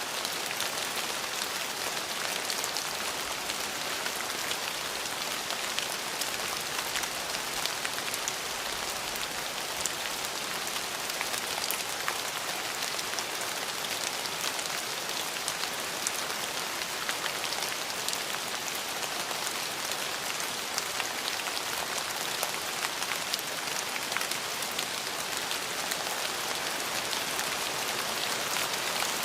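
Steady rain falling on a surface, an even hiss with many small drop ticks and no thunder.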